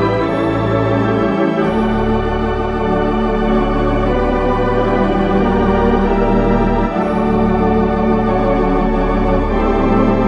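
Sampled theatre pipe organ (Hauptwerk Paramount 332 sample set) playing full sustained chords over deep pedal bass notes, with chord changes about one and a half seconds in and again about seven seconds in.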